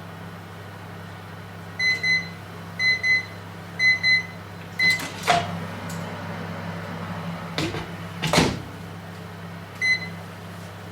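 Microwave oven running with a steady low hum, then beeping in short pairs about once a second and once more singly, the signal that the cooking cycle has ended. A few sharp clunks follow, from the door being opened and shut, and one more beep sounds near the end.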